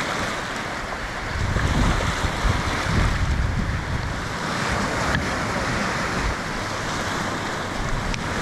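Rough surf washing up against a rocky shoreline, with gusty wind rumbling on the microphone.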